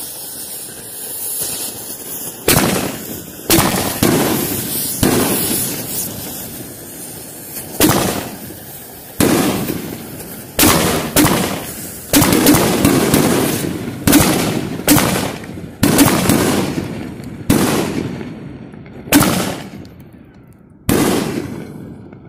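Red Apple 1.4G canister firework shells going off in a rapid, uneven series: about fifteen sharp, loud reports, each trailing off into a decaying tail. The first couple of seconds hold a hiss before the reports begin.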